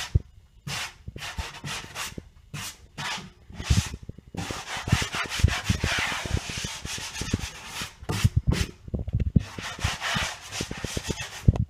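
Hand sanding of dried drywall joint compound with a sanding block: scratchy back-and-forth strokes with short pauses between them, and a longer unbroken stretch of rubbing in the middle. This is the light sanding that takes the rough edges off the second coat on a ceiling patch.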